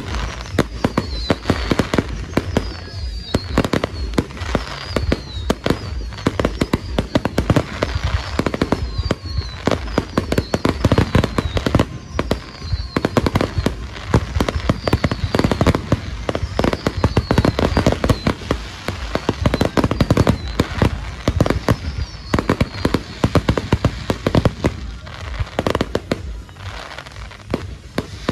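Fireworks finale: a dense, rapid barrage of shell bursts, bangs and crackling, with repeated short falling whistles among the explosions.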